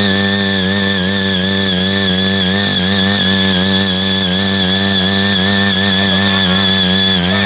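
Small engine of a CY80 mini power tiller running steadily at high revs, its note wavering slightly as the tilling blades work the soil. A steady high whine sits above the engine note.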